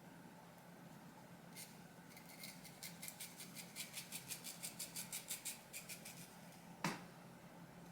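Hair-cutting shears snipping through wig hair in a quick run of snips, about four a second, followed near the end by a single sharper click.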